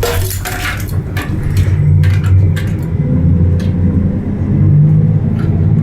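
Hauling vehicle's engine and road rumble heard from inside its enclosed cargo container, the engine note growing louder as it pulls about two seconds in and again later, with scattered rattles and clicks from the load.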